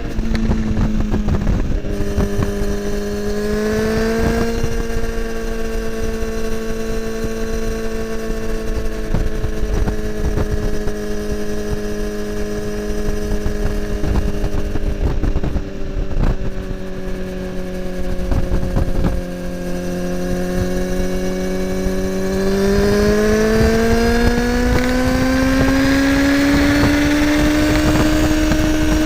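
Kawasaki ZX-10R inline-four through an Akrapovic slip-on exhaust, ridden at a steady cruise. About three quarters of the way in it accelerates, its note rising smoothly in pitch. Wind rumbles on the microphone underneath.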